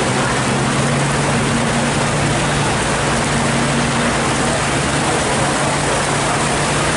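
Heavy rain and water running over the road, a steady loud hiss, with the low steady hum of car and truck engines moving slowly through the wet bend.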